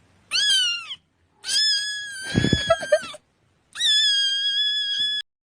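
A cat screaming in three high, drawn-out cries. The first falls in pitch, the second and third are held steady, and a few low thuds sound under the middle cry.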